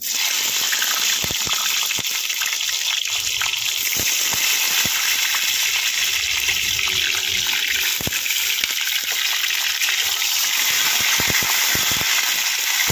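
Steady gush of running water with a few small knocks scattered through it, cutting in and out abruptly.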